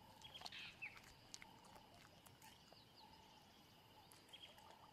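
Faint bush ambience: a steady high chirring that breaks on and off, with a few short chirps and scattered faint clicks.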